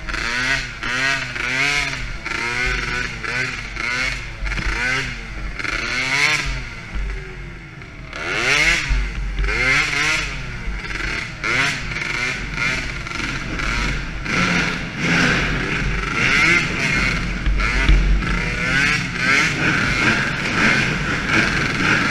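Small DRR 50 youth quad's engine, close to the camera mounted on the machine, revving up and down over and over as the throttle is worked around the dirt track. From about two-thirds of the way through, its note holds steadier.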